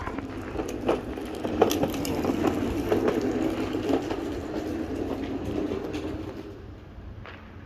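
Wheels rolling slowly past close by on the street, crunching and crackling over grit and debris; the rolling noise builds over the first seconds, holds, and fades near the end, with scattered sharp cracks on top.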